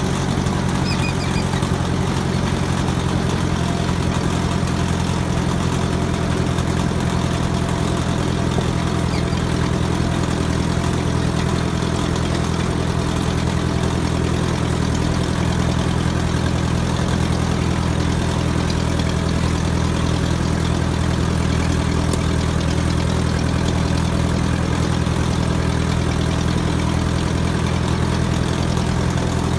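Small tractor's engine running at a steady pace as the tractor drives along, heard from on board: a constant low drone that does not rise or fall.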